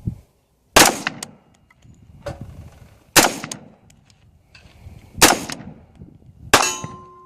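Four single gunshots, fired slowly one at a time about two seconds apart, each with a short echoing tail, and a few fainter knocks between them.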